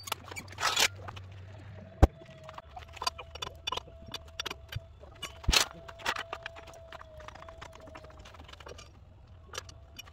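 Lug nuts and a four-way lug wrench clinking and knocking as a wheel is put back on, with two sharp knocks about two seconds in and about five and a half seconds in. A faint steady tone runs through the middle.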